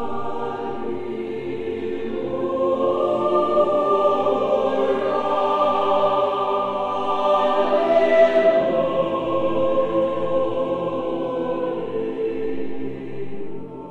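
Background music of a choir singing long held chords, swelling to its loudest a little past the middle and fading away near the end.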